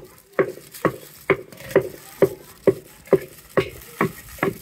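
Steady rhythmic knocking from food preparation, about two even strikes a second.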